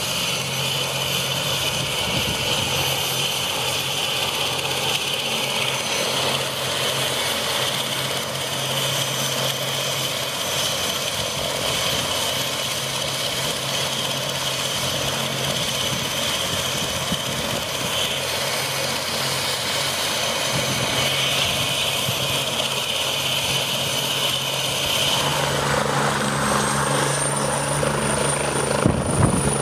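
Rescue helicopter's turbine engine running on the ground with a steady high whine over a low drone. Near the end a second, higher whine rises and then holds as the sound grows a little louder.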